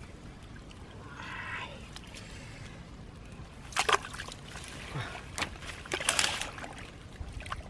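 Hands splashing and sloshing in a shallow pool of muddy water while groping for fish, in irregular sharp splashes that come thicker from about four seconds in.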